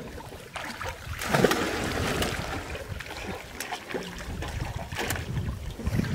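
Irregular splashing and sloshing of water, with wind on the microphone.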